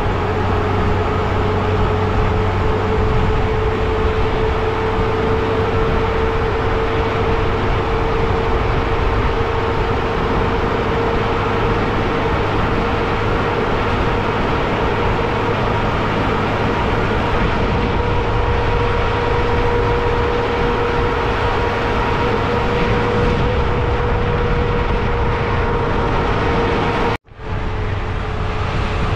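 Vehicle driving along a road: steady engine and road noise with a steady whine. The sound drops out suddenly for an instant near the end.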